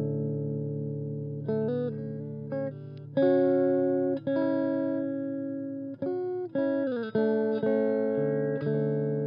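Guitar music: plucked chords ringing out and fading, a new chord struck every second or so, with a sliding, falling chord change about seven seconds in.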